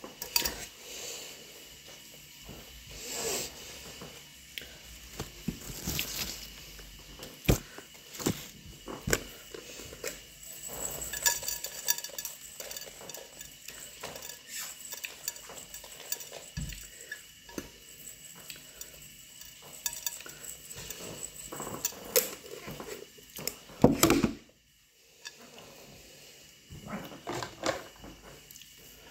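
Kitchen utensils and dishes clinking and knocking irregularly, with light scraping between the knocks, as mushrooms are handled and prepared. A louder clatter comes near the end.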